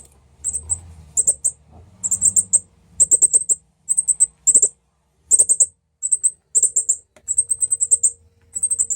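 Baby birds cheeping as they feed: very high-pitched peeps in quick clusters of two to five notes, repeating about every half second.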